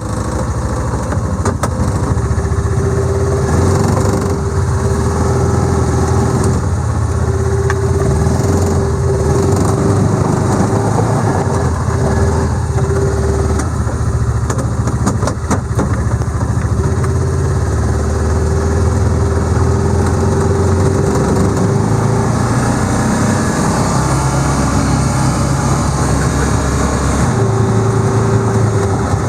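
Motor vehicle engine running steadily while driving, with a low rumble and a higher tone that comes and goes.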